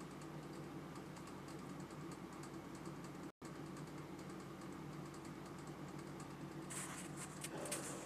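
Faint light clicks and taps over a low steady hum, with a quick flurry of louder clicks near the end. The sound cuts out for an instant about a third of the way in.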